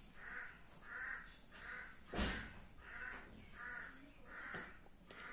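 Crow cawing faintly, a string of about seven short caws in two runs, with a single short knock about two seconds in.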